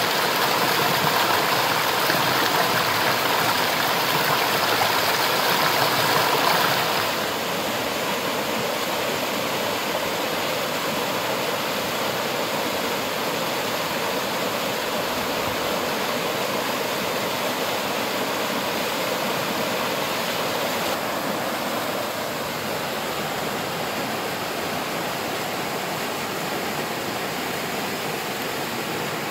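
Waterfall: a steady rush of falling water. About seven seconds in it turns a little quieter and duller, and it drops slightly again later.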